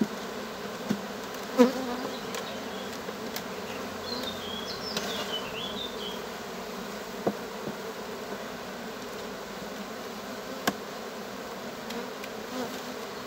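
Honeybees of a weak, broodless colony buzzing steadily over an open hive while frames are lifted out, with a few sharp knocks of frames and hive tool against the wooden hive body, the loudest about one and a half seconds in.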